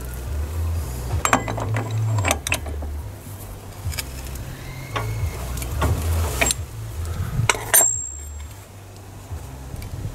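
Steel socket and wheel brace clicking and knocking against the driveshaft nut and hub of a Citroen ZX while the 35 mm nut is tightened, a couple of the knocks ringing briefly. A low rumble runs underneath.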